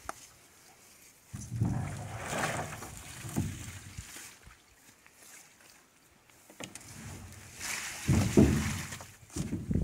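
A heavy old bathtub scraping and knocking against the ground as it is pushed and tipped over, in two bouts of a few seconds each, the second one louder.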